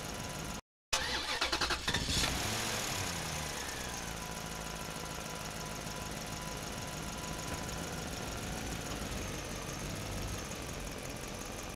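Vehicle engine starting: a rapid stuttering crank for about a second, then the pitch falls as it settles into a steady idle. Since only toy trucks are in play, this is most likely a dubbed engine sound effect.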